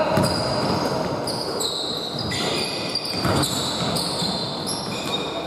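Basketball game play on a hardwood gym floor: sneakers squeaking repeatedly in short high-pitched chirps, with a basketball bouncing.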